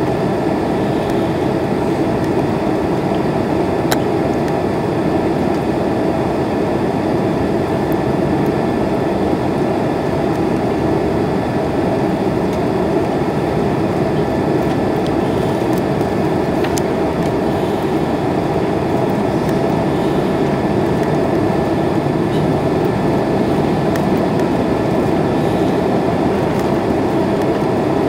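Jet airliner cabin noise on final approach, heard from a window seat: a steady roar of engines and rushing air, with a faint high steady tone on top.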